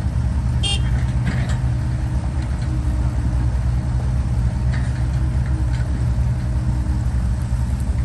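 Komatsu crawler bulldozer's diesel engine idling steadily, with a brief high-pitched tone less than a second in.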